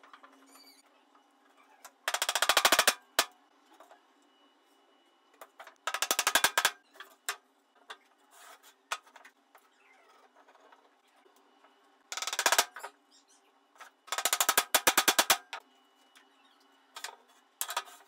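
Plastic glue bottle squeezed into wooden mortises, its nozzle sputtering in rapid rattling bursts as glue and trapped air are forced out, five bursts in all.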